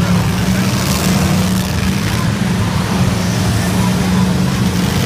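Engines of several demolition derby cars running at once on the dirt track, a loud, steady, low engine drone.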